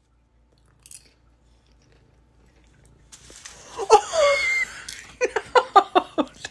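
Rustling from about three seconds in, then a woman's startled cry about four seconds in, followed by fast, repeated bursts of laughter.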